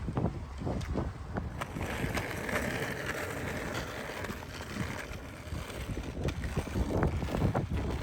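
Wind buffeting the microphone in uneven gusts, with a few faint knocks.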